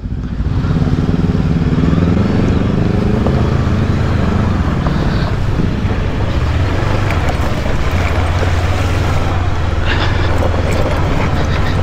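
Bristol Venturi 500 adventure motorcycle engine running under way over gravel and rocky riverbed, its pitch climbing over the first few seconds as it picks up speed. A steady rushing noise runs under it.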